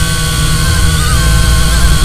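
High, steady whine of a small camera drone's electric motors and propellers, several tones held together and wobbling slightly in pitch with the throttle, over a heavy low rumble of wind and vibration on the onboard microphone.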